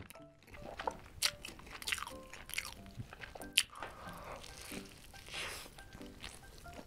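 Crunchy bites and chewing of a fried, breaded homemade chicken nugget made of chicken breast, close to the microphone: a run of crackling crunches, the sharpest about three and a half seconds in.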